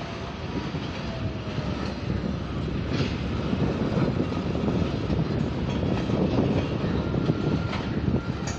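Loaded freight hopper wagons of a coal train rolling past on the rails: a steady rumble of wheels on track that swells in the middle, with a few sharp clicks of wheels over rail joints and a faint thin whine coming in near the end.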